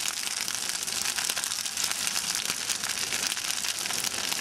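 Large wood bonfire burning, a dense, steady crackle of many small snaps and pops.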